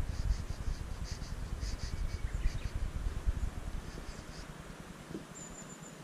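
Outdoor ambience: wind rumbling on the microphone, easing off about four and a half seconds in, with short high bird chirps repeating throughout and a brief thin high whistle near the end.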